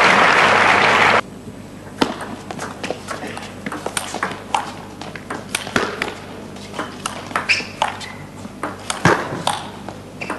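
Crowd applause that cuts off abruptly about a second in, then a table tennis rally: the celluloid ball clicking sharply off paddles and table, about two hits a second.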